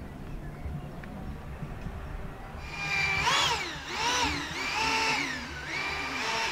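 Motor of a radio-controlled model Trabant car driving on the water, starting about two and a half seconds in with a high whine that revs up and down in pitch four times, about once a second.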